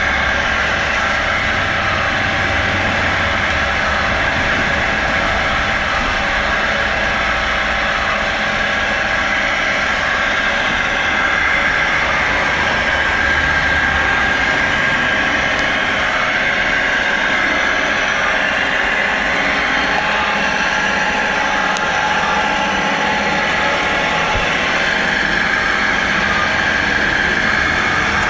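Home-built electric winch running steadily: a 2 kW electric motor driving two coupled gear reducers that turn the cable drum, giving a continuous mechanical drone with a steady high gear whine.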